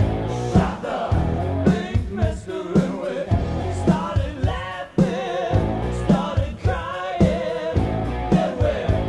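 Rock band playing a song: a singing voice over a steady drum beat with full band accompaniment.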